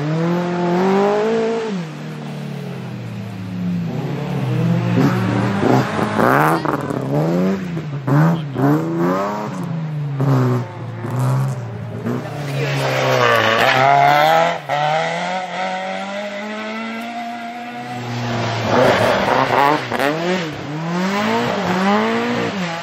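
Rally car engine revving hard, the revs climbing and dropping again and again as the car accelerates, shifts and lifts off. One long climb to high revs comes about halfway through.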